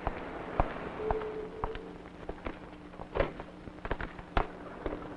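Irregular sharp clicks and knocks, roughly two a second, over a steady low hum.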